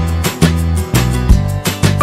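Background music with a steady beat, about two beats a second, over a repeating bass line.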